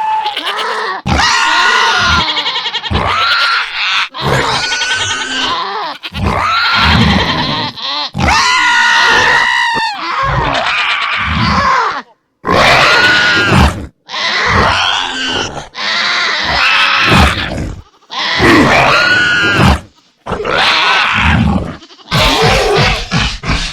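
Dinosaur vocal sound effects for a Pachycephalosaurus: a run of about a dozen separate animal-like calls, each one to two seconds long, with pitch that wavers and bends, divided by short gaps.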